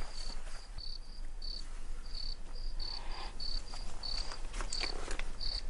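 Crickets chirping: short high chirps repeating two or three times a second over a quiet night background.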